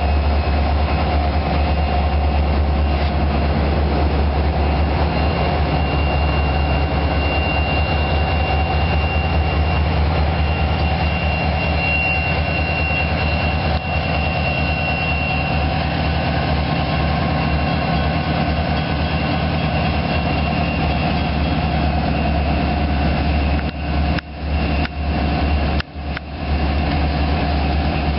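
Diesel-electric freight locomotives running as they roll past at close range: a steady low engine rumble with a thin, steady high whine over it. The sound dips briefly twice near the end.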